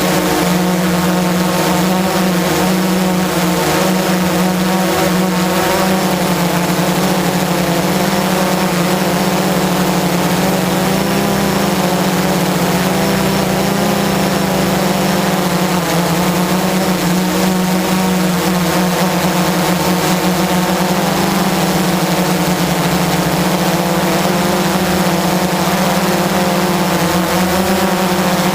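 Blade 350 QX quadcopter's electric motors and propellers whirring steadily in flight, a loud, even hum whose pitch wavers slightly as the throttle shifts.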